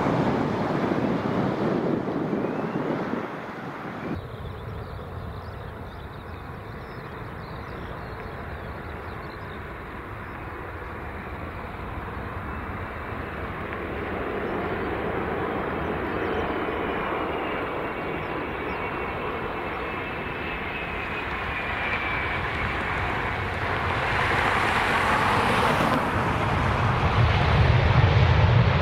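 Airbus A380 jet engines during landings. The engines rumble until a sudden change about 4 s in. After that, an approaching A380's engines sound softer, with a thin whine slowly falling in pitch as the plane nears and grows louder. Near the end a sudden switch brings a loud low rumble as the A380 rolls down the runway.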